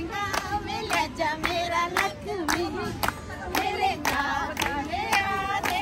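A group of women singing a Punjabi folk song together, clapping in a steady beat, about two claps a second.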